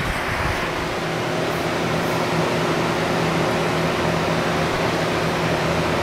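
Steady machine hum with an airy, fan-like hiss: a low drone holding a couple of fixed pitches, unchanging throughout.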